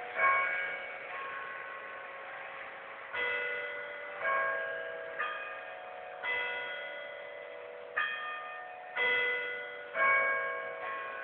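Clock tower bells of the Baker County Court House, struck by the restored mechanical clock. About nine strikes on bells of different pitches, roughly a second apart with a few longer pauses, make a slow chime tune, each bell ringing on and overlapping the next.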